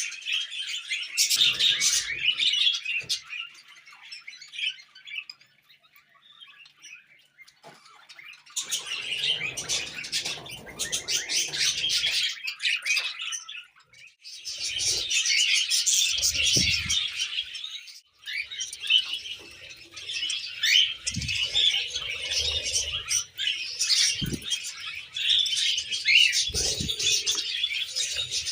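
Pet budgies and cockatiels chirping and chattering in a fast, busy warble, with a quieter lull a few seconds in. A few short low knocks sound in the second half.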